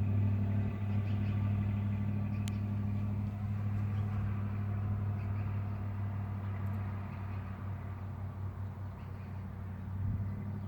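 Steady low engine drone, like a motor vehicle idling, with a single sharp click about two and a half seconds in.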